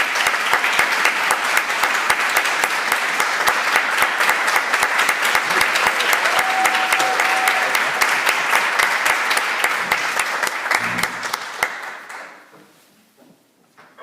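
Audience applauding, the clapping dying away about twelve seconds in.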